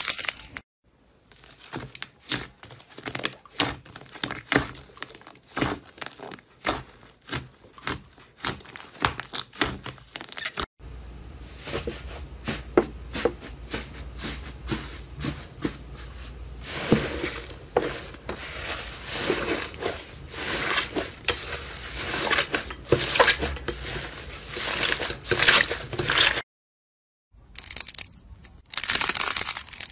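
Hands squeezing, stretching and pressing slime: a dense run of irregular soft crackles, clicks and squelchy pops. In the middle stretch a crumbly light-blue cloud slime is pressed, with a faint steady hum under the crackling; the sound cuts out briefly near the end.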